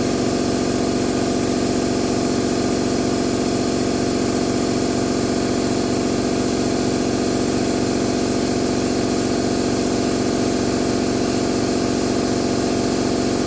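Electric shop air compressor running steadily after cutting in: an even motor hum with a steady hiss. It runs without sparking, its motor blown clean of the moss and stink bugs that had caused the sparks.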